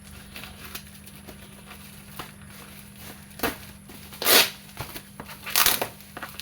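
Shipping package being torn open and crumpled by hand: scattered crinkles and clicks, with three loud rustling tears about three and a half, four and a half and five and a half seconds in, the middle one the loudest.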